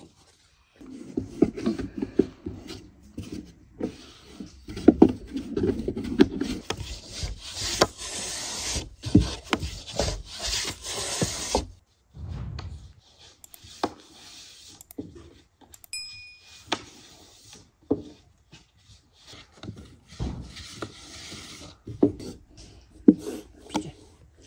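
A long thin wooden rolling pin rolls out a sheet of dough on a floured round wooden board, rubbing and clicking against the wood in irregular strokes. It is busier and louder in the first half.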